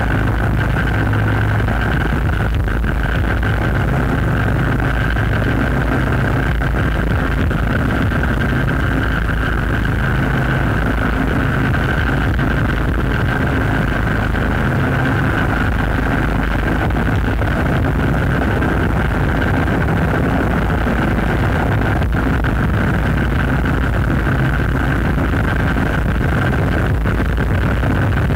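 Industrial noise music: a dense, unchanging drone of rumbling, engine-like noise with a steady hum-like tone held above it.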